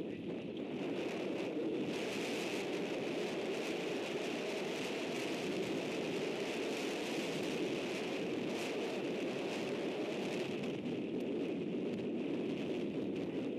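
Heavy wind blowing steadily, an even rushing noise with no pauses.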